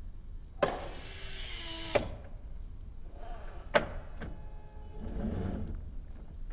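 Electric motor and drivetrain of a Traxxas TRX-4 1/10-scale RC crawler whining in short bursts, the longest lasting about a second and a half, with sharp clicks where the bursts start and stop.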